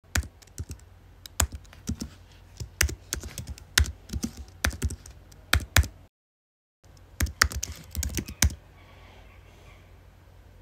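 Keyboard typing: irregular key clicks for about six seconds, a brief break, then another quick run of keystrokes that stops about two-thirds of the way through, leaving a faint hiss.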